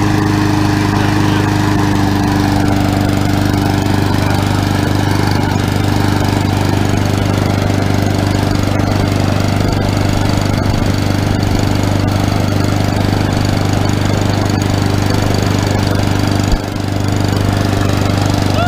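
Lawn mower engine running at a steady speed, with a single knock near the end.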